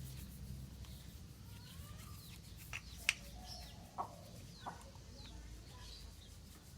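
Chickens clucking and small birds chirping, broken by a few sharp knocks, the loudest about three seconds in.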